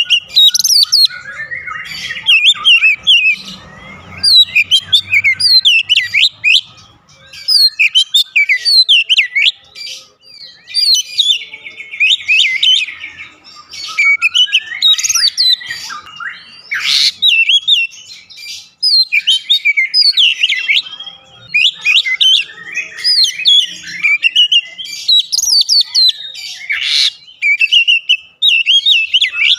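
Oriental magpie-robin (kacer) in full song: a fast, nearly unbroken run of varied clear whistles, trills and chirps with only brief pauses.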